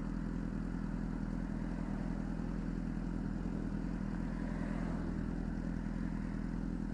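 Honda CBR600RR's inline-four engine idling steadily.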